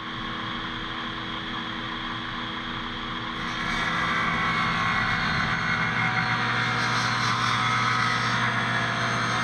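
Table saw running and ripping a lengthwise slot down a 2-inch PVC pipe. The sound grows louder and harsher about three and a half seconds in, as the pipe is fed into the blade.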